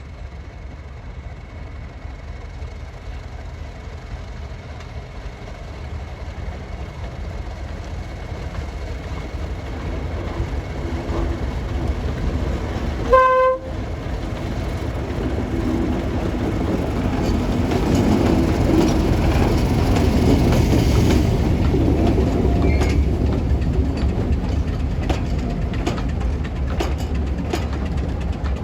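Diesel locomotive approaching, its engine rumble growing steadily louder, with one short horn blast about halfway through. As it passes, the wheels click over the rail joints.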